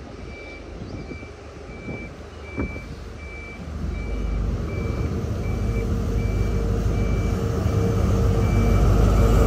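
A repeating electronic beep, about three every two seconds, sounds throughout. From about four seconds in, a diesel train's engine rumble builds and keeps growing louder as the train approaches.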